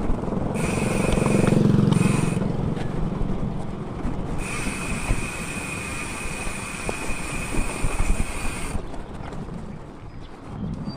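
Outdoor road noise during a mountain-bike ride, with a motor vehicle rumbling past about a second or two in. A high, even buzz switches on and off abruptly three times, the longest stretch lasting about four seconds.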